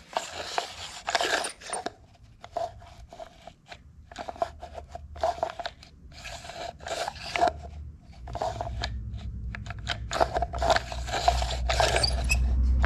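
Ski-Doo recoil starter being turned and shifted by hand on a wooden bench: a run of short, irregular scrapes and clicks from its metal housing and plastic pulley. A low steady hum joins about eight seconds in.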